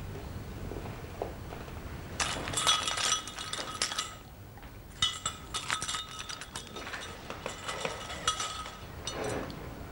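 Bright tinkling and clinking, glassy and ringing, in two runs: from about two seconds in to four, then after a short pause for roughly three and a half seconds more.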